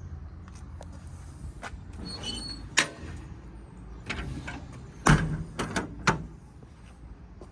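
A run of sharp metal clicks and clunks from a truck service-body compartment door and its latch being worked, the loudest clunk about five seconds in, with a few quick knocks just after. A low steady rumble runs underneath.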